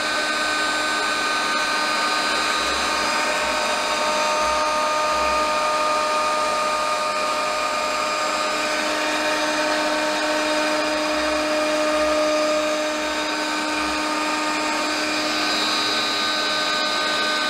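CNC router spindle running steadily, a quarter-inch round-nose solid carbide bit taking a light spiral finishing pass in laminated hardwood: a steady whine with several held tones over a hiss.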